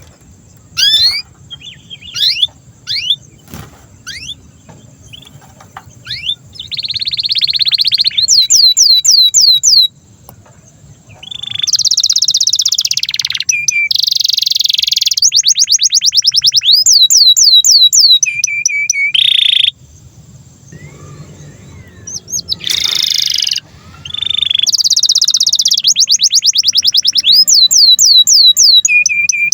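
Domestic canary singing: a few short chirps at first, then long phrases of fast trills and rolls, broken by two short pauses.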